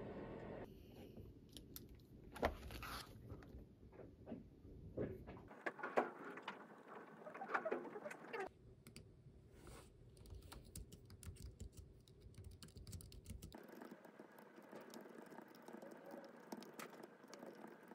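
Faint desk sounds across a few quick cuts: soft taps and scratching, then light, quick clicking of typing on a low-profile computer keyboard.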